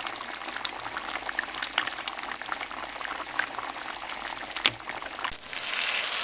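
Risotto rice simmering in broth in a pan, bubbling and popping as a wooden spatula stirs it, with one sharp knock a little before five seconds in. Near the end it turns to a louder, denser sizzle as the rice, its liquid nearly cooked off, fries in the pan.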